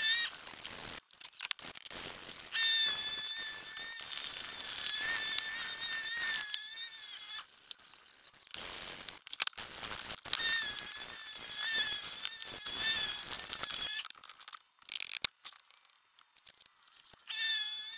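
Hand sanding a hardwood panel with a round sanding block: scratchy rubbing strokes of sandpaper on wood, with a high, wavering squeal that comes and goes in spells of a second to a few seconds as the block is pushed back and forth. Scattered clicks and knocks come from the block and the panel being handled.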